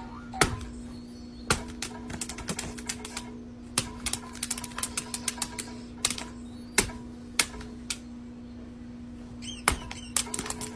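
Sharp, irregular clicks and taps, some in quick rattling runs, over a steady low hum, with a brief squeak near the end.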